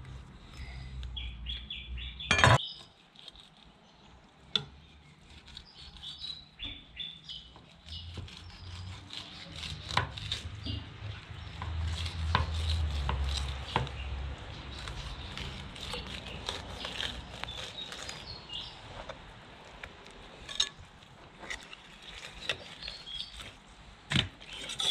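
Knife skinning a large raw fish fillet on a plastic cutting board: scraping and slicing as the blade works between skin and flesh, with scattered clicks and taps of the blade on the board, the sharpest about two and a half seconds in.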